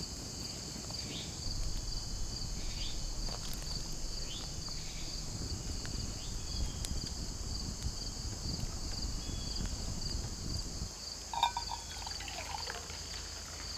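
Steady insect chorus, a pulsing high buzz, over a low rumble that drops away about eleven seconds in. Near the end comes a brief metallic clink and pour as coffee goes from the pot into a metal cup.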